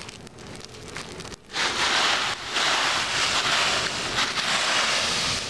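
Wind gusting across the microphone: a loud rushing noise that comes up about a second and a half in and holds.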